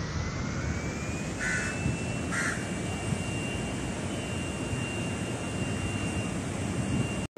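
Outdoor port-yard ambience: a steady low rushing rumble with a thin high whine that slowly rises in pitch and then holds steady. Two short crow caws cut through about one and a half and two and a half seconds in.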